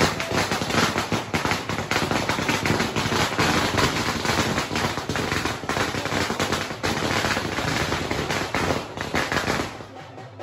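A string of firecrackers going off in a rapid, continuous crackle of sharp bangs, cutting off abruptly near the end.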